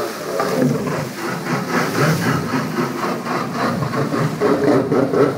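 Stand-up jet ski engine running and churning the water after landing a flip, pulsing steadily at about four beats a second.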